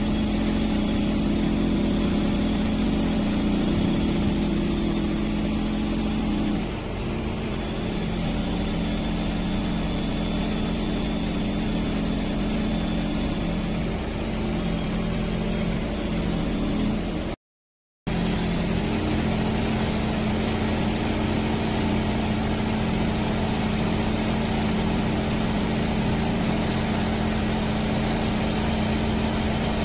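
Engine-driven hydraulic power of a drilling rig running steadily while the hydraulic magnetic rod-carrier arm moves drill rods, a constant engine hum. It eases off slightly about six to seven seconds in and drops out for about half a second a little past the middle.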